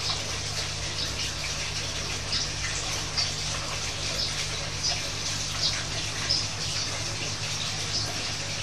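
Steady rushing background noise with a low hum, dotted with faint, short, high-pitched chirps every second or so.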